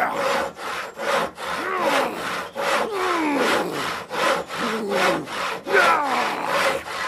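Saw cutting through wood in quick back-and-forth strokes, about two a second, some strokes carrying a sliding ring from the blade.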